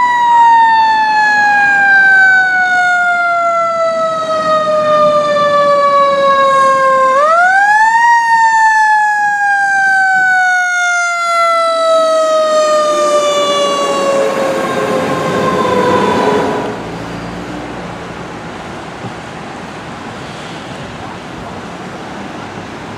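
Fire engine siren: a long tone that slowly falls in pitch, is wound back up quickly about seven seconds in, then falls slowly again while road noise swells as the truck passes. The siren cuts off suddenly after about sixteen seconds, leaving a quieter, steady traffic noise.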